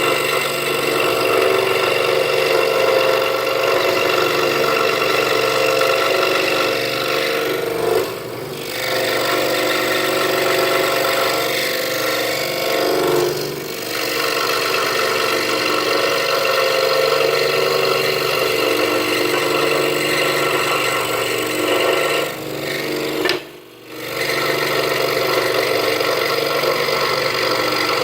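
Scroll saw running steadily, its Pegas blade cutting through half-inch pine. The sound dips briefly a few times, once almost dropping out for a moment about three quarters of the way in.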